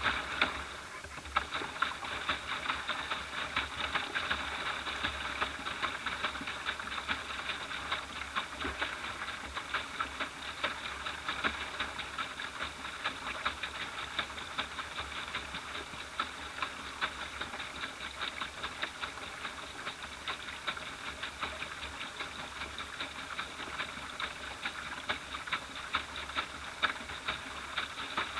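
A small boat's motor running steadily with a rapid, even clatter, starting suddenly at the beginning and sounding thin and muffled.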